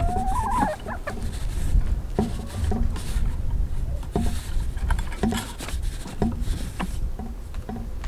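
A rooster's crow tails off in the first second, then chickens cluck in short calls, with scattered light clicks among them.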